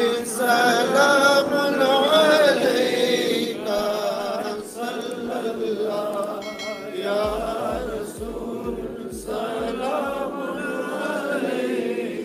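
Male voice chanting a devotional salam into a microphone, unaccompanied, in long wavering held notes. A run of low thumps, about two a second, sounds for a few seconds in the middle.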